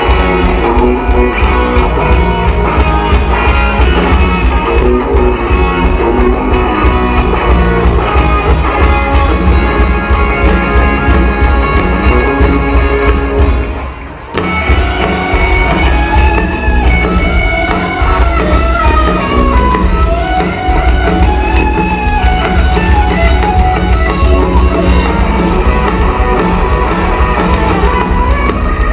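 Live rock band playing loud, with electric guitar, bass guitar and drum kit, heavy in the low end. The sound dips briefly about halfway through, then the music carries on.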